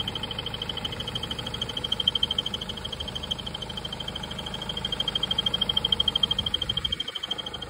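BMW N47D20 four-cylinder diesel idling with a high-pitched squeak from the accessory belt drive, chirping rapidly and evenly many times a second. The fault behind it was a failing crankshaft pulley.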